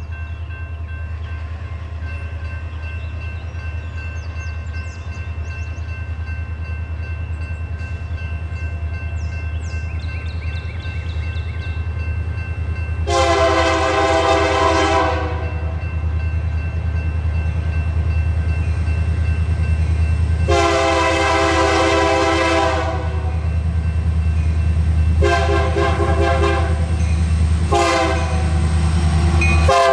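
Approaching diesel locomotive, its engine a steady low rumble that grows louder. It sounds a multi-tone air horn: two long blasts about seven seconds apart, then two short ones.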